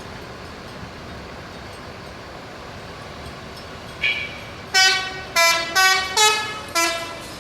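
A 'telolet' multi-tone bus horn plays a quick run of five loud notes at different pitches, after a single short high beep about four seconds in. Before the beep there is only a steady background noise.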